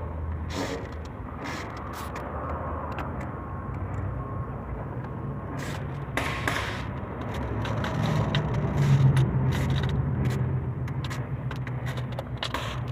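A car engine running at idle, with sharp ticking clicks scattered over its steady hum. The tick is the engine noise suspected to come from the lifters or tappets.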